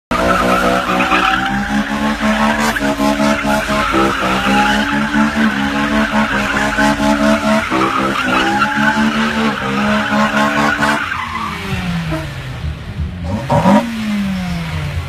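Honda S2000's four-cylinder engine held at high revs while the rear tyres spin and screech through drift donuts, throwing up heavy smoke. About eleven seconds in the revs drop away, with one quick blip near the end before they fall again.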